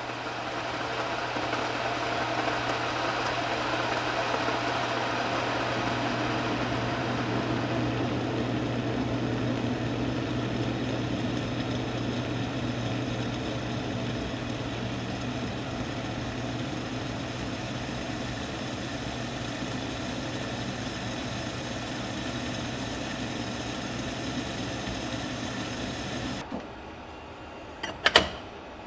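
Induction hob heating a stovetop gooseneck kettle of water: a steady electrical hum with the water heating inside, which cuts off suddenly near the end. Then two short knocks as a hand takes hold of the kettle's lid thermometer.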